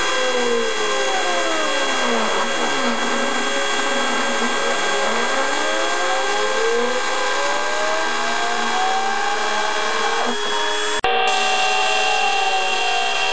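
Homemade CNC router running, its handheld router spindle whining steadily as the bit mills a white sheet. Tones glide up and down in pitch over the top as the machine's axis motors speed up and slow down. The sound drops out for an instant about eleven seconds in.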